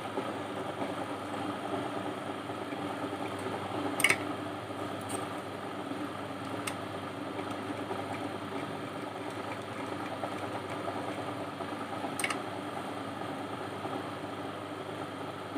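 Sewing machine running steadily, stitching a zip onto dress fabric, with two sharp clicks, about four seconds and about twelve seconds in.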